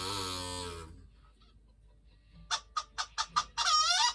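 Farmyard bird sound effects: a rooster's crow that fades out about a second in, then a quick run of six clucks, then two longer honking calls near the end.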